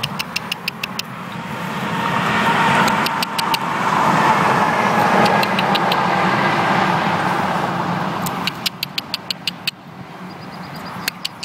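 A road vehicle passing by, its noise swelling to a peak about four seconds in and fading away over the next few seconds. Runs of rapid, sharp high ticks, about seven a second, come and go throughout.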